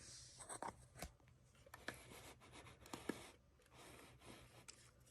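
Faint rubbing and a few light, irregular clicks as an alarm clock is handled.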